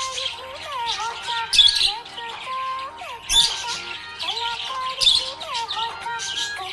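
Budgerigar chirping and squawking in short, repeated bursts, over music with a gliding melody.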